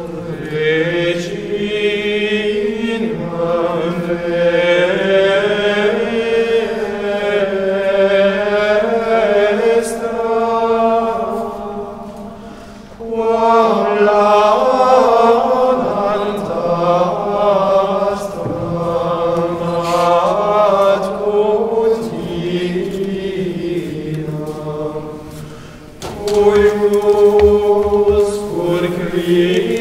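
Small unaccompanied men's choir singing Latin liturgical chant in long sustained phrases, echoing in a large stone church. It breaks off briefly twice, about twelve and twenty-five seconds in.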